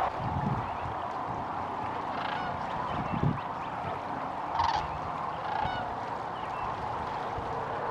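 A large flock of sandhill cranes calling: a dense, steady chorus from many birds, with a few nearer, louder calls standing out about two, four and a half, and five and a half seconds in. A couple of low thumps come about half a second and three seconds in.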